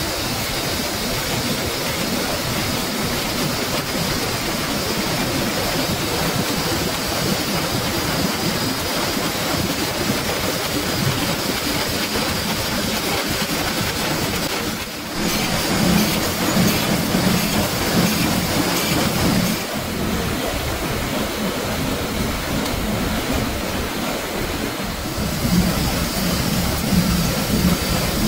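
Sheet-fed printing press running as it prints sheets of matchbox labels: a steady, dense mechanical clatter. About fifteen seconds in it dips briefly, then runs louder with a low hum underneath.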